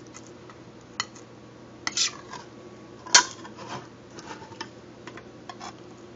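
Metal tin-can lid being punctured with a can piercer: a series of sharp metallic clicks and scrapes, the loudest about three seconds in with a brief ring.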